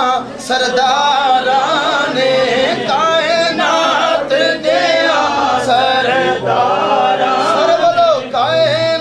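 A man singing a devotional chant, in a drawn-out melody whose pitch wavers and glides.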